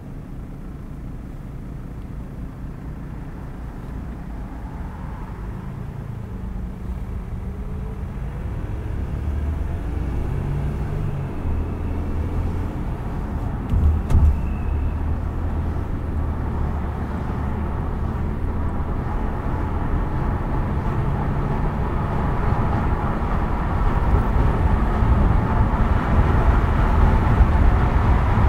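Car driving: a low engine hum under tyre and road noise, growing gradually louder through the stretch, with one short thump about halfway through.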